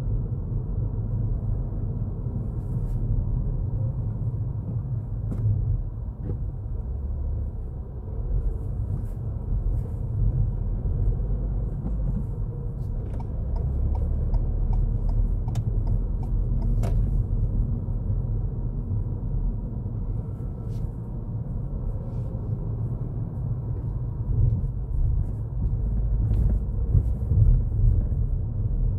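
Ford Fiesta driving at low speed, heard from inside the cabin: a steady low rumble of engine and tyre noise, with a few faint ticks.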